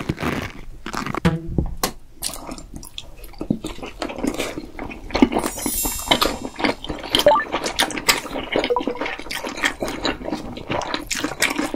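Close-miked wet eating sounds of two people chewing fried seaweed rolls (gimmari) soaked in spicy tteokbokki sauce: a steady run of sticky, moist clicks and smacks.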